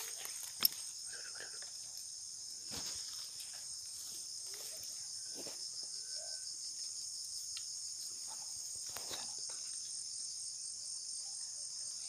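Dense insect chorus: a steady, shrill buzz in several high bands, with faint rustling and a single sharp click about half a second in.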